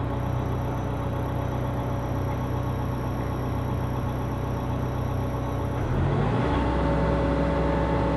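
Atlas 150W wheeled excavator's diesel engine running steadily as the boom makes fine hydraulic movements, rising in pitch about six seconds in as the engine revs up under load.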